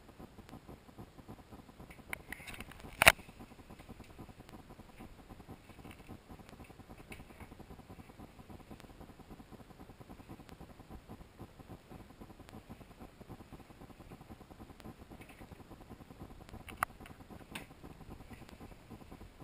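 Faint handling noise from a handheld camera carried through small rooms, with a sharp knock about three seconds in and a lighter click near the end.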